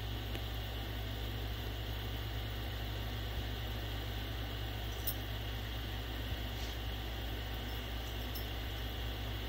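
Window air conditioner running: a steady low hum with even fan noise, and a few faint ticks partway through.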